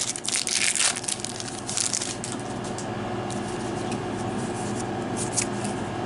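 Foil booster-pack wrapper crinkling and tearing as it is pulled open. The crackles come thickest in the first couple of seconds, then thin out to occasional rustles.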